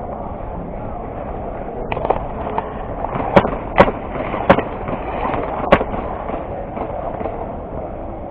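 Airsoft guns firing single shots: four sharp cracks a little past the middle, the loudest sounds here, with a few lighter clicks shortly before them, over steady background noise.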